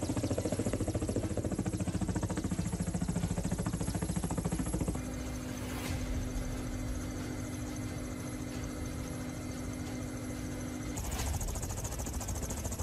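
Kamov Ka-27 helicopter's coaxial rotors beating in a fast, even pulse as it flies. About five seconds in, the sound turns to a steady hum and whine of engines and rotor gearbox heard from inside the cockpit. Near the end it gives way to a louder rushing noise.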